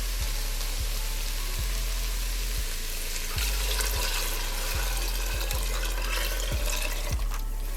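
Turkey stock pouring steadily into a pot of sautéed vegetables, a continuous rushing splash that starts abruptly and cuts off shortly before the end.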